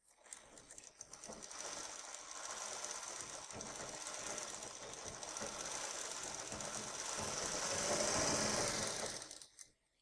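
Industrial sewing machine running continuously as it stitches a curved neckline piece of fabric. It grows louder over the seconds and stops abruptly about a second before the end.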